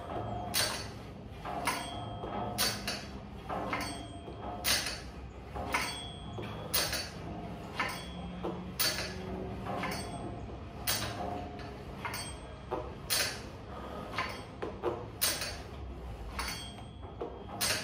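Home multi-gym machine clanking in rhythm with cable curl repetitions: a sharp metallic clank about every two seconds as the weight stack and cable move, with lighter clicks and rattles between.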